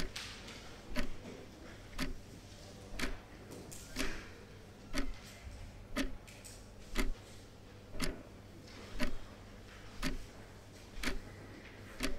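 Clock ticking, one sharp tick a second in a steady rhythm, with fainter clicks between some of the ticks.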